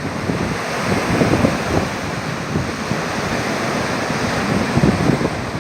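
Sea surf washing steadily on the shore, with wind buffeting the microphone in irregular low gusts.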